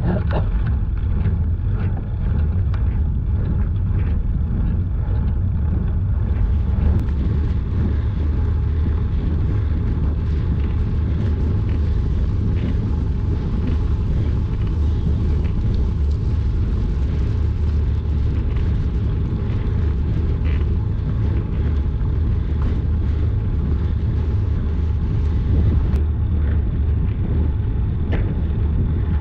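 Steady low rumble of wind buffeting and road noise on a road bike's GoPro Hero 9 microphone during a slow climb.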